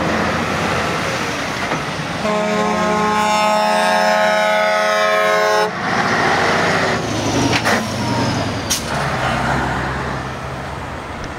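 Truck air horn sounding one long blast of about three and a half seconds, a couple of seconds in, over the engines of heavy trucks driving past. Two sharp cracks come near the end.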